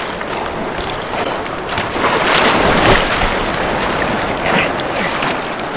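Surf breaking and whitewater rushing around a kayak as it is paddled out through the shore break. The rush swells loudest about two to three seconds in.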